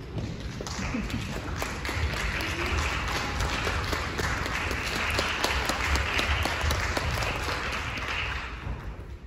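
Audience applauding, many hands clapping; it swells about a second in and dies away near the end.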